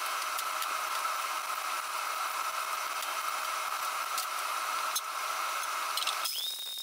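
Bateerun tabletop blender running steadily, with pieces of laptop circuit board rattling in the jar as they are ground to powder. Near the end the sound changes to a steady high whine as the controls are worked.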